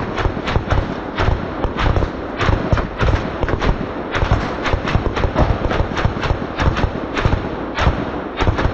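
Sustained volley of gunfire from several guns at once, shots coming several times a second and overlapping, fired at a car.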